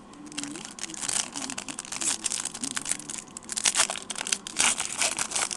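Foil wrapper of a Upper Deck Sweet Spot baseball card pack being torn open and crinkled by hand, with irregular crackling and rustling.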